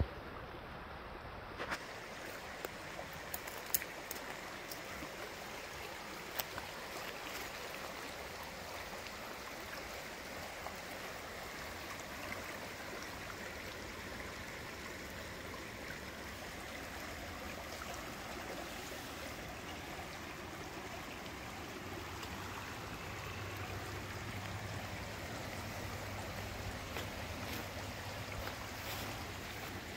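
Small mountain river babbling steadily over rocks, a constant rush of water, with a few sharp clicks in the first several seconds.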